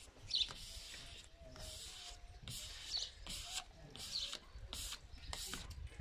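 Hand rubbing self-adhesive vinyl lettering down onto a van's body panel: a run of short swishing strokes, about two or three a second.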